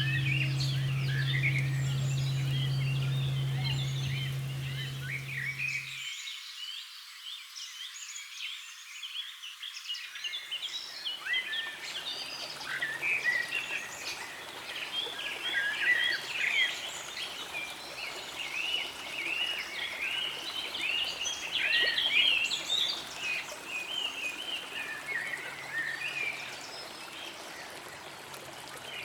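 A bell's low, steady hum cuts off suddenly about six seconds in. A dense chorus of high, quick chirping calls runs throughout and is busiest in the middle and latter part.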